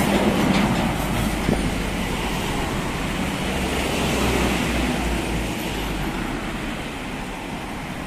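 Road traffic passing close: lorries and a box truck going by with low engine rumble and tyre noise, loudest near the start and easing off toward the end.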